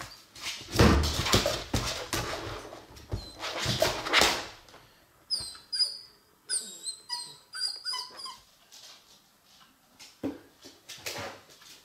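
Beagle puppy whimpering in a run of short, high-pitched whines about halfway through, straining for a treat it cannot reach. Noisy scuffles come before the whines.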